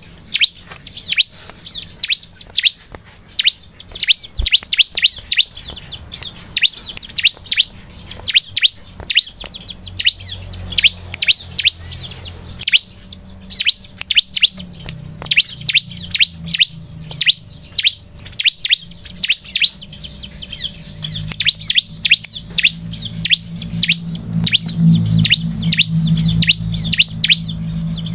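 A bar-winged prinia (ciblek) calling without pause: a rapid run of short, high, downward-sweeping chirps at about three to four a second.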